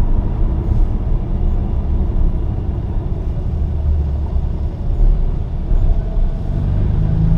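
Car engine and road noise heard from inside the cabin while lapping a track: a loud, low drone. About six and a half seconds in, the engine note comes up clearly and grows louder as the car accelerates.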